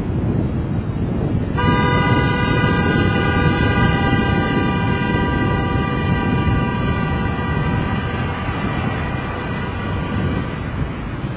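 A vehicle horn sounds once, a long steady tone that starts sharply about a second and a half in and slowly fades away over several seconds. Under it runs a steady rush of wind and road noise from riding.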